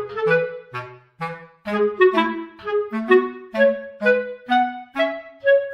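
Background music: a woodwind melody, clarinet-like, over a lower bass line, played in short separate notes at a steady pace.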